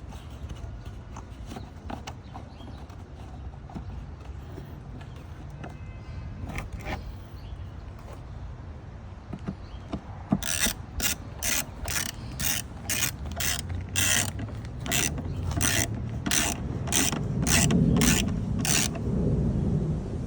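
Hand ratchet wrench clicking in a run of short, evenly spaced strokes, about two a second, starting about halfway through, as screws on the plastic air filter housing are driven in; a few light tool-handling clicks come before it.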